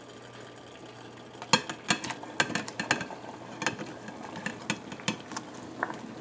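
A utensil clinking and knocking against a cooking pot as peeled tamarind is added to boiling water: a run of irregular sharp clicks starting about a second and a half in.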